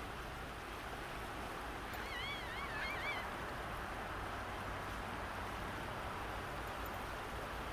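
Steady rush of a flowing creek over gravel. About two seconds in, a short warbling whistle wavers up and down for about a second.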